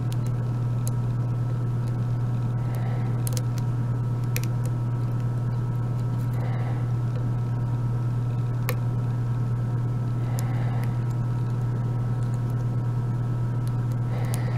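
A steady low hum, with faint scattered clicks of a lock pick working the pin stack of a Vachette 5-pin euro cylinder under tension.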